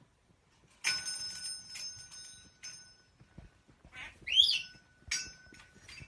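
Parrot calling: a few sharp, shrill, ringing squawks starting about a second in, and one loud whistle that rises and falls about four seconds in.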